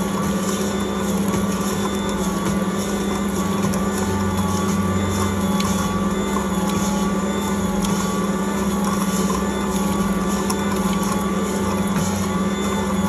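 Ankarsrum Original Assistent stand mixer running steadily with an even hum, turning its steel bowl as the roller and scraper knead pizza dough.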